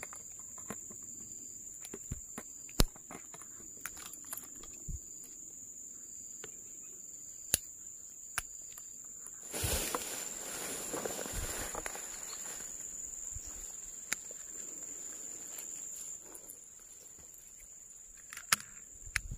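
A steady high-pitched insect drone, with faint evenly spaced chirps through the first half. Scattered sharp clicks and knocks from handling come over it, and about ten seconds in there is a burst of rustling through the grass and leaves.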